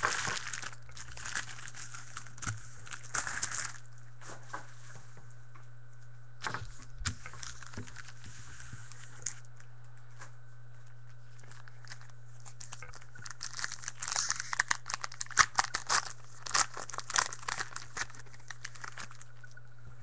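Trading-card pack wrapper being torn open and crinkled, in rustling bursts during the first few seconds and again a few seconds later. About halfway through, the cards are handled and shuffled, with a quick run of sharp clicks and slides.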